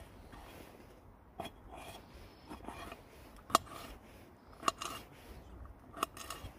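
Small knife slicing a red bell pepper on a metal pan, the blade knocking down onto the pan with each cut: several sharp knocks, the loudest about halfway through.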